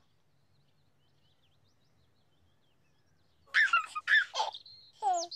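Near silence, then about three and a half seconds in a baby giggles in a few short, high-pitched bursts. Near the end comes a glide that falls steeply in pitch.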